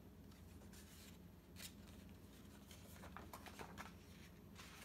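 Near silence, broken by faint paper rustling and a few soft clicks as the pages of a picture book are handled and turned, most of them in the second half.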